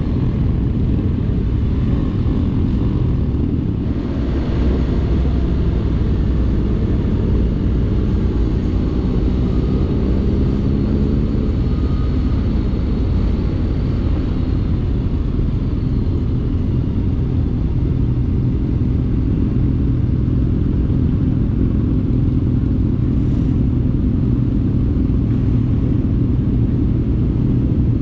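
Motorcycle riding on the road: a steady engine drone under heavy wind and road rush, with the engine note shifting in pitch partway through.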